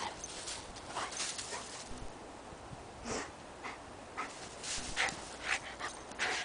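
Bernese mountain dog rolling and wriggling on its back in snow: an irregular run of short crunching, rustling bursts from the snow and the dog, several a second.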